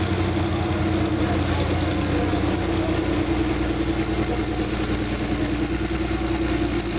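Porsche 911's flat-six engine idling steadily, a low even drone without revving.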